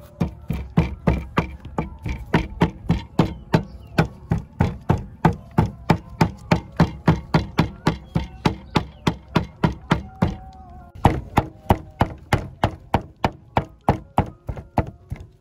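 Cleaver chopping pork into mince on a wooden cutting board: rapid, even strokes about four a second, with a short pause about ten seconds in before the chopping resumes.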